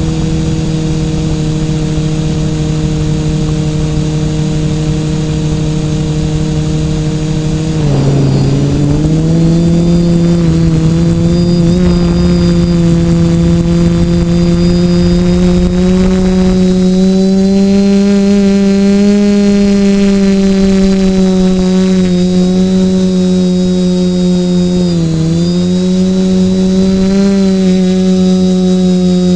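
TBS Discovery quadcopter's electric motors and propellers buzzing steadily as heard from the onboard camera, with a thin high whine over them. The pitch dips briefly about eight seconds in and again near the end, then climbs back as the throttle changes.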